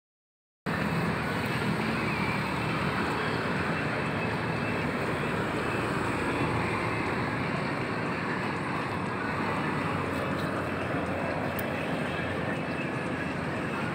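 Steady road traffic noise from a busy street, starting about half a second in and holding even throughout, with no music.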